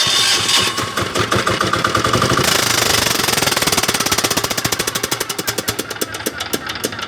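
Single-cylinder diesel engine of a welding generator running loud after starting, with a rapid, hard knocking beat; toward the end the knocks spread out and soften as the engine slows. The running shows the fault the generator is in for repair.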